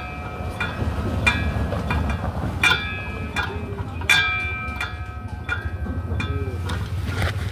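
Bell tone struck over and over, about every 0.7 s, each strike ringing out and fading before the next, the loud strikes alternating with softer ones, over a low steady rumble. It is the test signal of a bell and siren unit.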